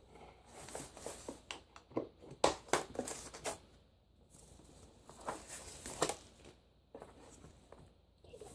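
Doll-box packaging being handled as a doll is worked free: irregular crinkling, rustling and small clicks of cardboard and plastic, heaviest in the first six seconds.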